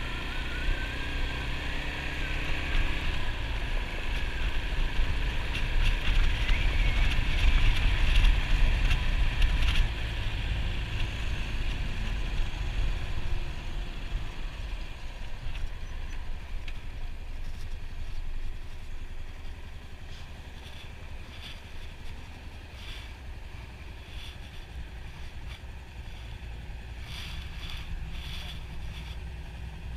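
Yamaha SR400 single-cylinder engine running under low wind rumble, growing louder to a peak about a third of the way in and then easing off. A few short clicks come near the end.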